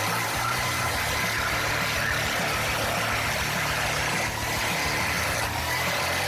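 Wood chipper's engine running steadily, a constant mechanical drone.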